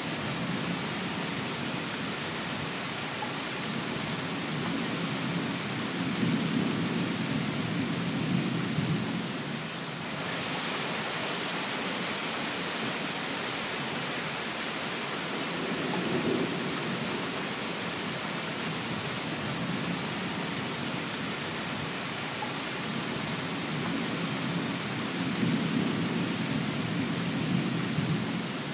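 Steady rain with low rumbles of distant thunder swelling and fading three times, the longest about a quarter of the way in and near the end.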